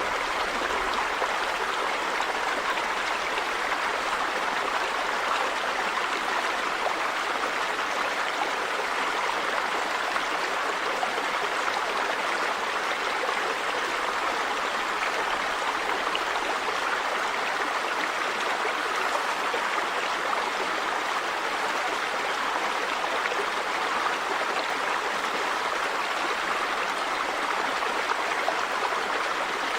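River water running over rocks, a steady rushing and babbling.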